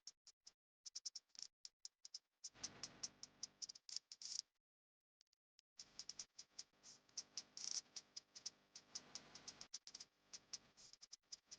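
Faint, irregular clicking and ticking, several sharp clicks a second, with a soft hiss beneath in stretches and a pause of about a second near the middle.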